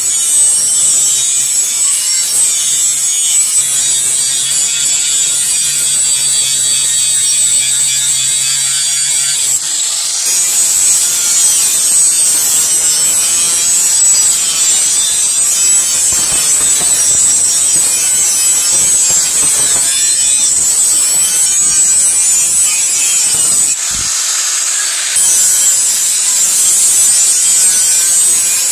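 Electric angle grinder with an abrasive sanding disc grinding a steel knife blade, a steady high whine over the rasp of the disc on metal.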